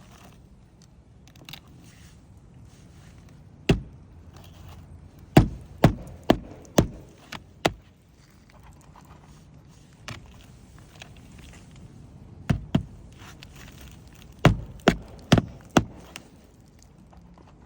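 Hammer striking on a shingle roof: a series of sharp, separate knocks in small clusters, about four quick blows around the middle and another four near the end.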